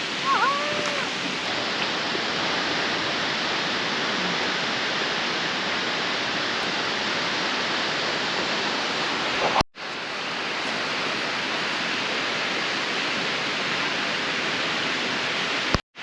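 Steady rush of a large waterfall's falling water. The sound cuts out abruptly twice, about ten seconds in and just before the end, then comes straight back.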